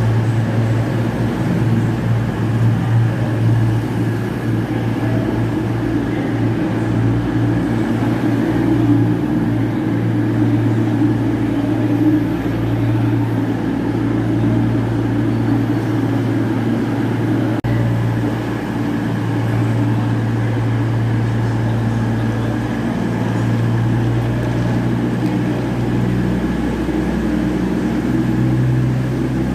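A train's engine running steadily, a deep, even hum with little change in level; its low tone shifts slightly near the end.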